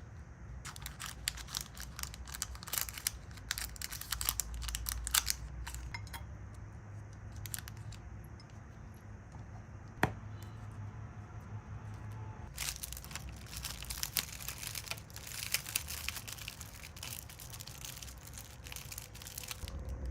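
Plastic packaging being handled close to the microphone: crinkling and tearing in two long bursts, with a quieter stretch between them and a single sharp click about halfway through.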